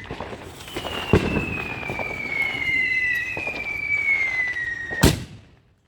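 Fireworks going off outdoors: a dull thump about a second in, then two overlapping whistles, each falling slowly in pitch, ended by one sharp bang about five seconds in.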